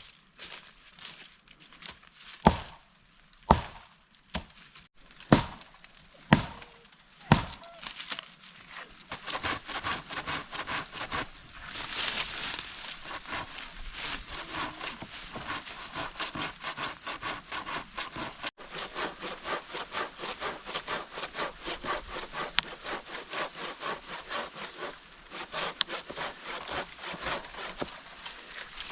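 Five sharp knocks on wood, then a handsaw cutting through wood with a steady run of back-and-forth strokes.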